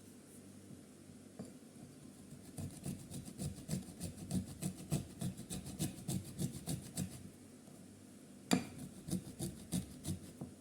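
Ginger root grated by hand: a run of rhythmic rasping strokes, about three a second, then a single sharp knock about eight and a half seconds in and a few more strokes.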